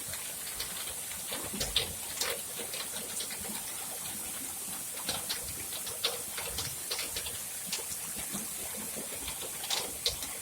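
Rainwater gushing from a pipe and splashing into a puddle during a downpour: a steady hiss broken by irregular splashes and drips.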